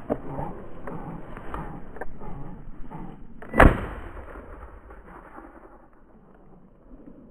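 Rustling footsteps through field crops, then a single shotgun shot about three and a half seconds in, with a short fading tail.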